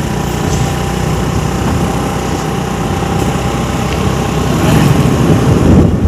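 Small two-wheeler engine running at riding speed, with steady rushing road noise. It gets louder near the end.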